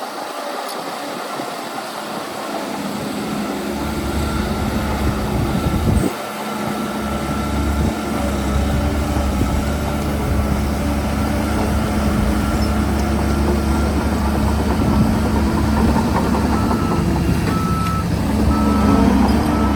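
Heavy diesel engine of construction machinery running steadily, with a reversing alarm beeping near the end.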